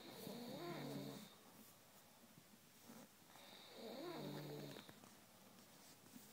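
Snoring: two drawn-out snores about three seconds apart, each with a pitched tone that rises and falls.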